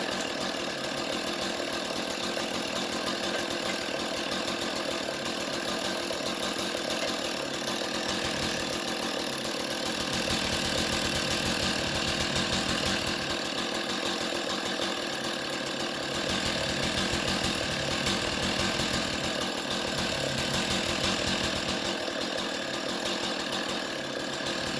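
Chainsaw in a chainsaw mill running steadily under load while slabbing a log, its engine note swelling a little in places.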